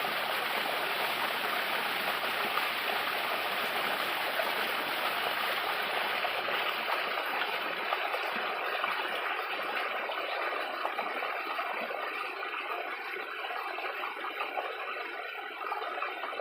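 Small waterfall with water splashing and rushing steadily; the flow grows slightly thinner and quieter in the second half, with more trickling.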